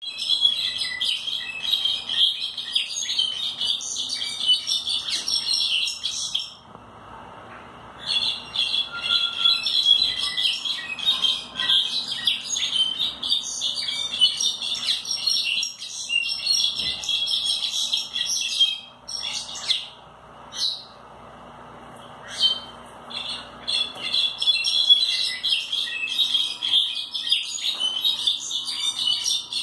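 Brown-backed solitaire (Myadestes occidentalis) singing: long runs of rapid, high, squeaky notes lasting several seconds each, broken by a few short pauses.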